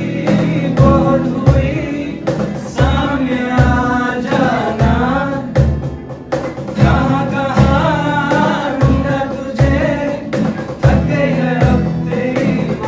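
A group of young men singing a song together to a strummed acoustic guitar, over a steady beat about every 0.7 seconds.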